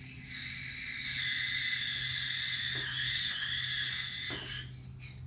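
High, whistling hiss of R12 refrigerant escaping at the can tap as the can is punctured, cutting off suddenly near the end once the connection is tight.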